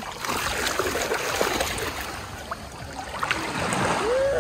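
Sea water splashing and washing in the shallows, with a short high child's voice near the end.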